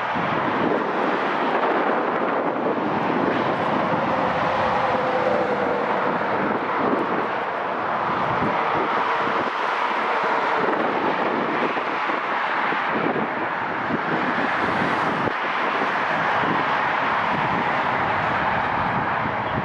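Airplane engines running as an aircraft passes on its landing approach, with gusty wind blowing on the microphone.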